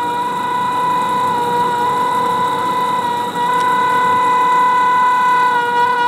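Electric locomotive's horn (WAP-7) sounding one long, loud, steady blast that starts sharply and is held on, with a brief dip about three seconds in, as the Rajdhani Express approaches on the curve.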